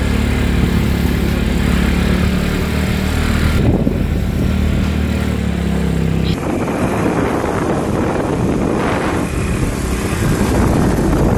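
Motor scooter engine running while being ridden, a steady hum. About halfway through, the hum gives way to a rougher rushing noise.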